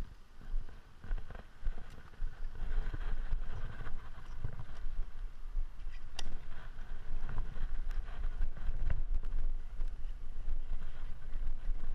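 Wind rumbling on a handlebar-mounted GoPro's microphone and road noise from a road bike riding on wet asphalt. It grows louder about two seconds in as the bike pulls away, and a few sharp clicks from the bike or mount cut through.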